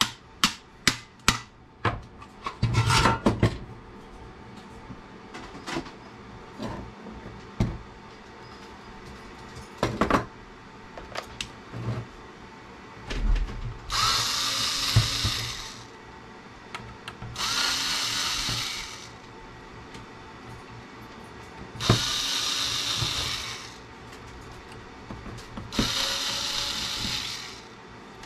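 Small cordless electric screwdriver running in four short bursts of about one and a half to two seconds each, backing screws out of a CB radio's circuit board. A quick run of sharp clicks near the start, and scattered knocks between the bursts, come from handling the radio's metal case.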